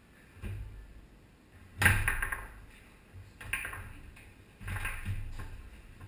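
Foosball table in play on a Tornado table: hard knocks of the ball being struck by the player figures and hitting the table walls, with the rods clacking. There are about four or five separate hits, the loudest about two seconds in.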